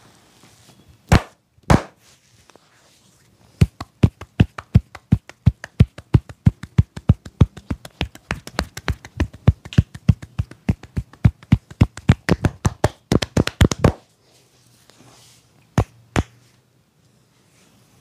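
Sharp pats and cracks from a barber's hands on a man's head and hair during a head massage. Two single strikes come first. Then a long run of quick strikes at about four a second quickens near the end, and two more strikes follow.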